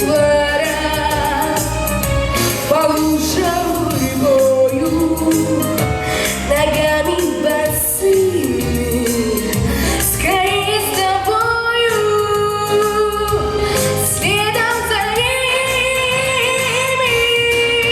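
A young girl singing a pop song over instrumental accompaniment, holding long notes with vibrato toward the end.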